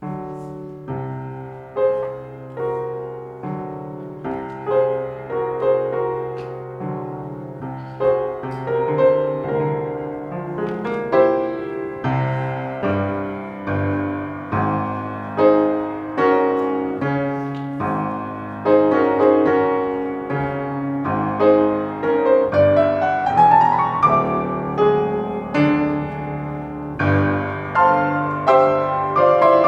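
Piano starts playing a piece, note after note ringing and dying away, with a rising run of notes about three-quarters of the way through and the playing growing louder toward the end.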